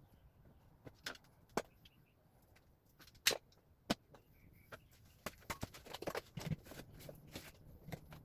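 Scattered sharp clicks and knocks of tools and small parts being handled, the loudest a single knock about three seconds in, with a busier stretch of handling near the end.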